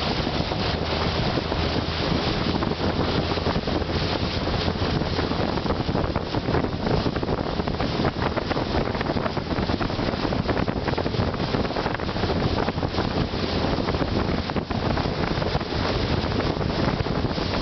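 Wind buffeting the microphone on a moving river boat, over the steady running of the boat's motor and water rushing past the hull.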